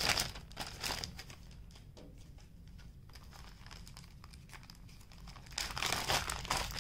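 Clear plastic zip bags crinkling as hands handle and open them. The crinkling is dense at first, dies down to a few faint rustles in the middle, and picks up again near the end.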